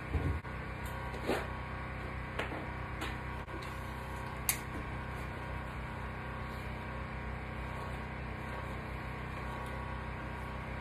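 Steady mechanical hum with a few knocks and clicks from a mountain bike being handled in a repair stand. The loudest is a low thump right at the start, followed by lighter clicks over the next few seconds.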